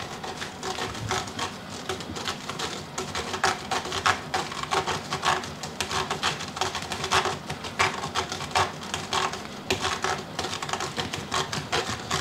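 Cat scratching a sisal-rope scratching post with its front claws: a quick, irregular run of scratch strokes, several a second.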